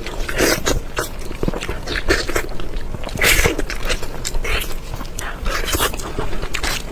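Close-miked eating sounds: a person biting and chewing food with irregular crisp crunches and wet mouth sounds, the loudest crunch about three seconds in.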